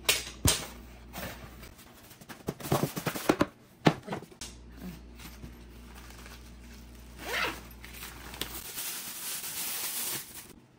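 Unpacking noises: cardboard and packaging knocking and rustling in quick short bursts, a zipper pulled open on an insulated lunch bag about seven seconds in, then plastic wrapping crinkling steadily as it is pulled off the lunch box, stopping just before the end.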